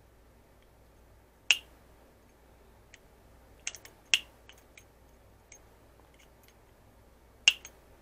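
A bicycle-engine kit's clutch lever and lock button being worked by hand: a few sharp, separate clicks, the loudest about a second and a half in and near the end, with a small cluster around the middle.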